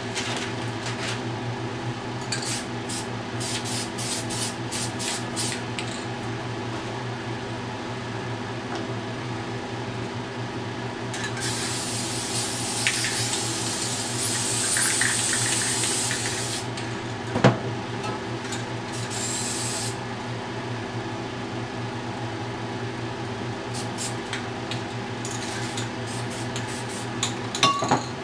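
Aerosol spray paint can hissing in one long burst of about five seconds, then after a sharp knock a shorter second burst. Glossy magazine paper crinkles and rustles before and after, over a steady background hum.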